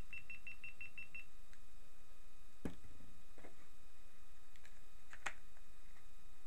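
A quick run of about eight short, high electronic beeps in the first second, then a few sharp clicks, over a faint steady high electronic whine.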